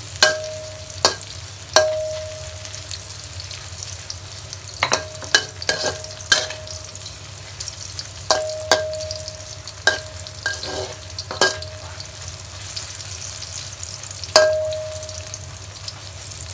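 Shiitake mushrooms sizzling in oil in a wok as they are stir-fried, the steady hiss broken by a spatula striking the wok about fifteen times at irregular intervals, each strike a short ringing clang. The mushrooms are being fried to release their aroma.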